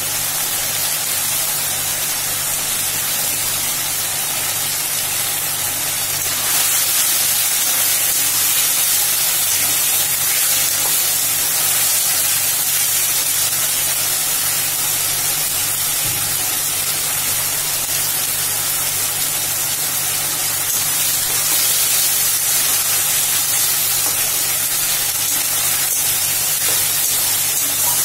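Shallots, capsicum and sauce sizzling in a hot metal wok: a steady, loud sizzling hiss that grows a little louder about six seconds in, with a low steady hum beneath.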